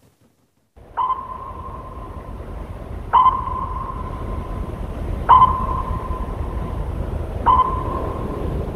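Sonar-style ping sound effect: a sharp ping that rings on as a held tone, repeating about every two seconds, over a steady low rumble. It starts about a second in, after a moment of silence.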